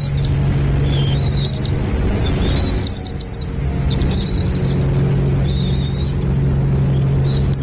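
Bird calls: several short, high, warbling chirps repeating about once a second, over a steady low hum.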